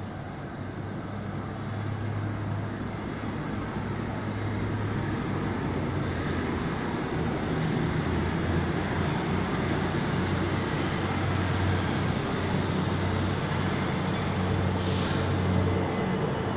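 Subway train approaching the station, its rumble and low motor hum growing steadily louder, with a short burst of air hiss near the end.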